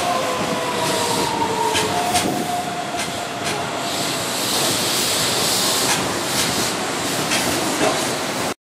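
Keihan 9000-series electric train (set 9005) running away over pointwork: the VVVF traction inverter's whine, a few tones sliding slowly lower, fades out over the first few seconds. Wheels click over rail joints and points above a steady rolling noise. The sound cuts off abruptly near the end.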